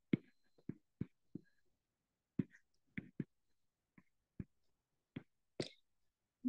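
Stylus tapping on an iPad's glass screen while handwriting: about a dozen short, faint, irregularly spaced clicks.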